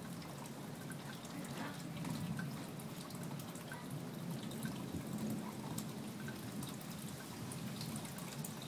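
Steady light rain with many small drops dripping and ticking.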